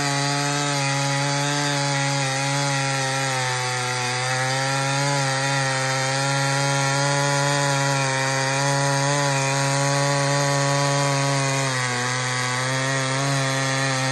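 Two-stroke chainsaw fitted with a homemade modified muffler, running at full throttle while cutting wood. Its pitch holds steady, sagging slightly under load a couple of times.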